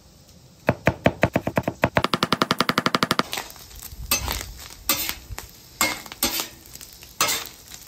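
Chef's knife rapidly mincing ginger on a cutting board, a fast, even run of chops for about two and a half seconds. Then a metal spatula scrapes and knocks on the flat-top griddle as chunks of pork belly are pushed across it.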